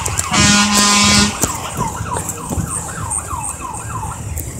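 Fire truck giving a horn blast about a second long, then its siren on a fast yelp, sweeping up and down three to four times a second.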